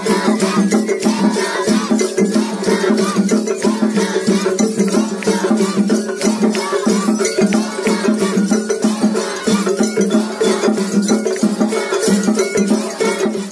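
Japanese festival hayashi music: fast, steady drumming with rattling metal percussion and sustained tones, played without a break.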